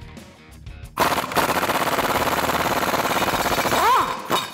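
Impact gun hammering for about three seconds, starting about a second in, as it backs out an 18 mm bolt from the driveshaft's three-bolt flange at the back of the transmission. Just before it stops, its motor briefly whirs up and down in pitch.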